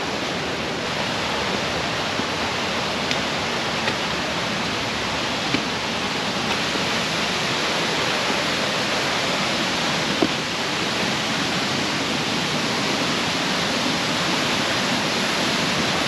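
Steady rush of a waterfall nearby, growing slightly louder, with a few faint knocks.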